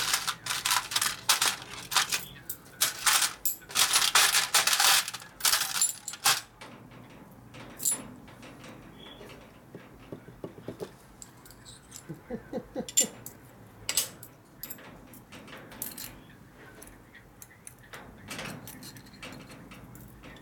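Loose metal washers and small parts clinking and jingling as a hand rummages through a plastic parts tray, a dense clatter for about the first six seconds, then scattered light clicks of small parts being handled.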